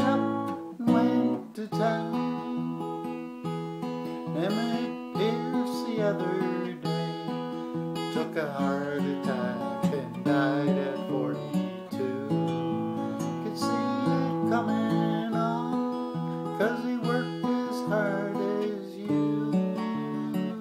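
Acoustic guitar strummed and picked, playing a folk song.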